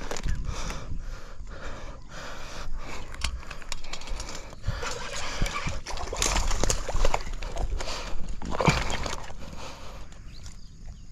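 Baitcasting reel being cranked by hand: a loose run of clicks and knocks from the handle and rod, over clothing and handling rustle on a body-worn camera. It is busiest in the middle, with a louder clatter about two-thirds of the way through.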